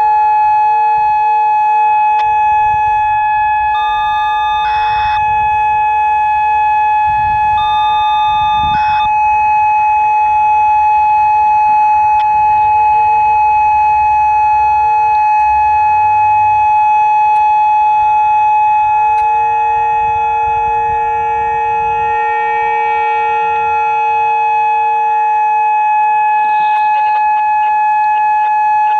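Whelen WPS-2810 electronic outdoor warning siren sounding its steady alert tone during a monthly test, one unbroken loud tone at a constant pitch.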